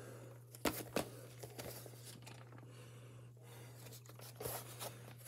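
Handling of a plastic VHS clamshell case: two sharp clicks about a second in, then light rustling and a few soft knocks. A steady low electrical hum from the TV runs underneath.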